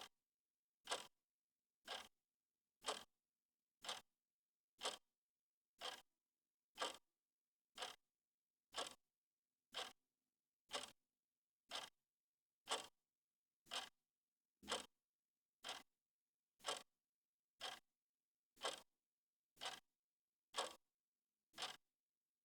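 Analog clock's second hand ticking steadily, one sharp tick a second, with silence between the ticks.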